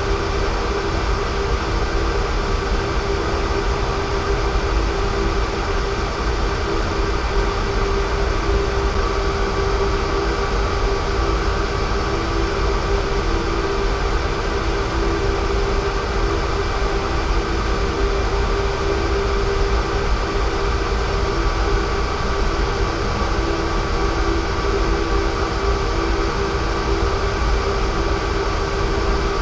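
Electric fan motor running steadily: a constant hum of a few steady tones over a rough, rushing noise, starting abruptly.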